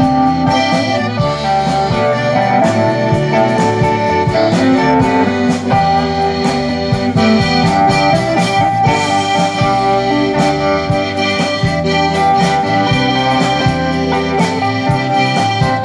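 Live band playing an instrumental passage: accordion over electric guitars and drums, with a steady beat.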